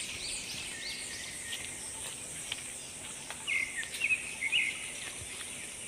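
Forest ambience: a steady high insect drone with scattered bird chirps, a quick run of short calls about three and a half seconds in.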